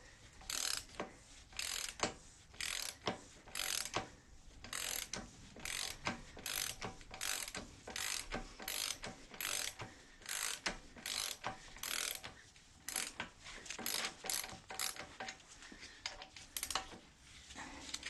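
Socket ratchet clicking in a long run of short back-and-forth bursts, about one and a half strokes a second, as it backs out the front brake caliper bolts.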